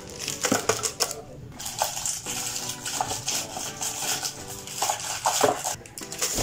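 Wrapped chocolates dropped by hand into an empty metal tin can, making scattered light clinks and rattles against the tin, over background music.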